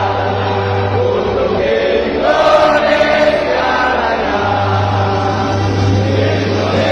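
Music with a choir singing long held notes over a steady low bass tone.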